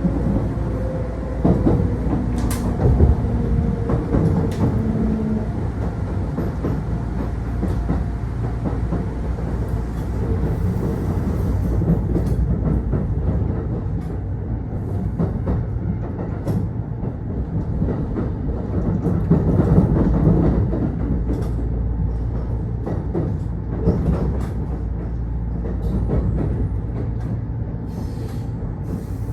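Kintetsu Osaka Line local train running, heard from inside the car: a steady low rumble of wheels on rail with scattered clicks from rail joints, and a humming tone for the first five seconds or so.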